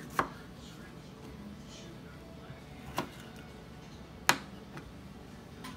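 Kitchen knife knocking against a plastic cutting board while fruit is sliced: three sharp knocks, the last the loudest. Faint background music underneath.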